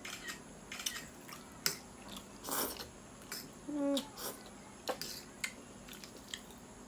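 Close-up eating sounds of a person chewing and biting dry chicken thukpa noodles: scattered wet clicks and smacks, with one longer noisy slurp-like sound about two and a half seconds in and a brief vocal hum near four seconds.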